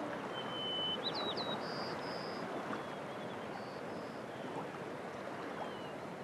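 Steady rushing of river water, with a few short, high bird whistles over it, some jumping quickly in pitch.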